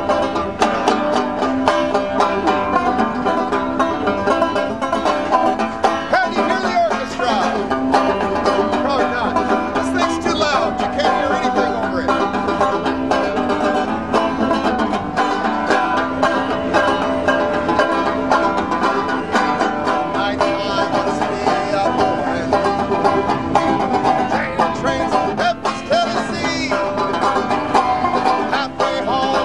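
Bluegrass-style banjo music: a steady run of quickly plucked notes.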